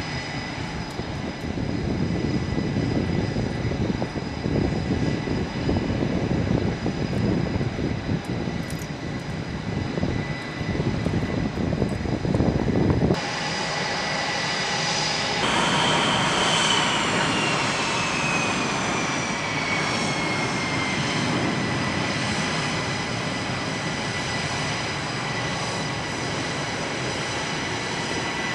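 Fighter jet engines: a rough, noisy rumble for roughly the first half, then an abrupt change to a steadier jet whine, with a high tone that slides slowly down in pitch.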